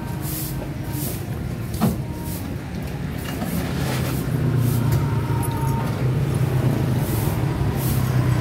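Busy market background: a steady low hum, like a motor running close by, that grows louder about halfway through, with one sharp knock about two seconds in.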